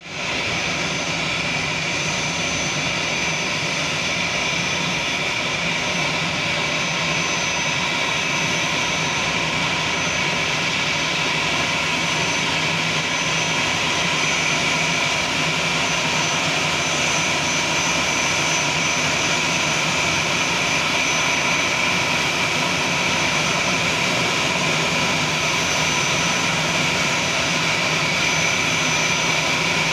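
Airbus A320-family airliner's turbofan engines running at low taxi power as the jet rolls slowly onto its stand: a steady rushing sound with a thin high whistle, growing slightly louder as it comes nearer.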